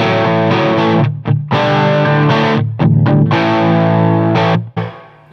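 Electric guitar on a P90 bridge pickup through an Amp Maker P1800 18-watt Marshall-clone amp, preamp gain cranked and master turned down, playing overdriven chords. The chords ring out with short breaks between them, and the last one fades near the end.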